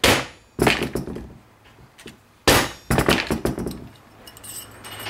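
Mallet blows on a wooden block that drives a spoon ring down a steel ring mandrel to stretch and set it to size: two sharp knocks, then after about two seconds another close cluster of knocks. Near the end, light metallic clinks as the ring is handled on the mandrel.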